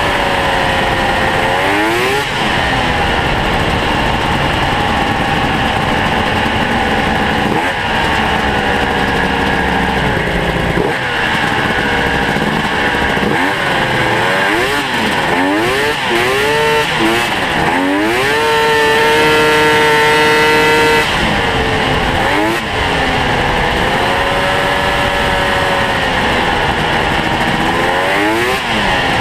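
Ski-Doo Mach Z snowmobile's two-stroke engine, ported by hand by its owner, revving up and falling back again and again while riding. About two-thirds of the way through it holds one long, steady high-rev pull before easing off.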